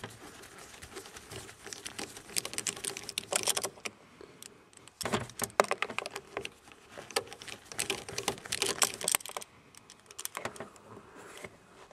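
Ratchet with a 5.5 mm socket on a short extension clicking in several short runs, backing a small bolt out from under a car's steering column.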